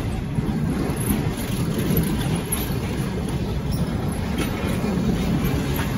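Railway passenger coaches of a departing train rolling past, a steady rumble of wheels on the rails.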